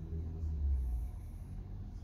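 Wind buffeting the microphone in a low, uneven rumble.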